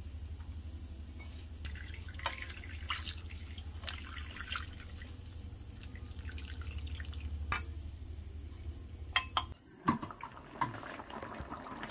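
Water dripping and trickling at a sink, with scattered light clicks, over a steady low hum that cuts off near the end.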